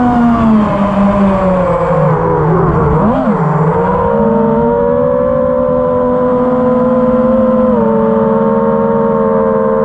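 FPV freestyle quadcopter's brushless motors whining in flight, one steady pitched hum. The pitch dips and swings back up about three seconds in as the motor speed changes, then holds level, stepping down slightly near the end.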